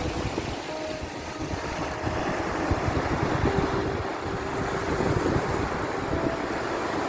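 Sea waves washing in, a steady rushing noise with a low rumble underneath and a few faint held tones.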